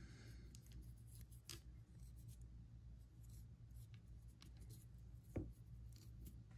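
Faint scratching and tapping of a paintbrush working a wash into the grooved surface of a sculpted figure, with one sharper tap about five seconds in, over a low steady hum.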